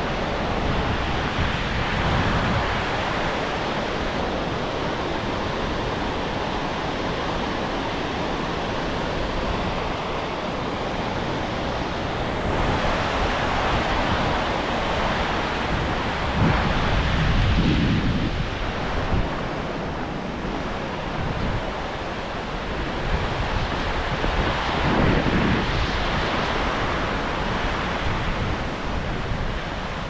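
Steady rushing of the Skógá river's falling and flowing water, with gusts of wind buffeting the microphone, strongest a little past halfway and again later on.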